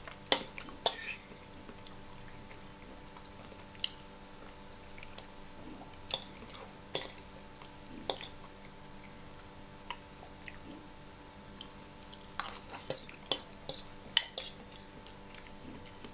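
Metal fork clinking and scraping against a ceramic bowl while picking up tortellini, single sharp clinks every second or two with a quick flurry of them near the end.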